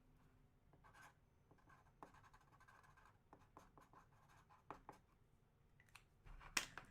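Faint scratching and rustling of handling noise, with a few light clicks, one about three-quarters of the way through and several near the end.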